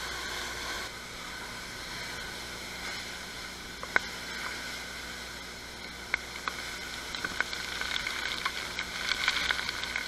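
Steady rushing hiss of a waterfall pouring into a river pool, with single sharp clicks about four, six and seven seconds in and a cluster of crackly clicks near the end as hands work a small fish off the hook.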